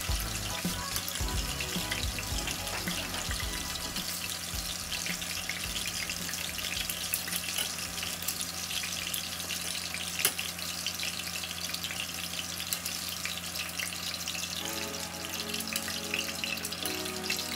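Hot oil sizzling and crackling steadily in a stainless steel frying pan as fried battered chicken pieces are lifted out with tongs, with one sharp click about halfway through.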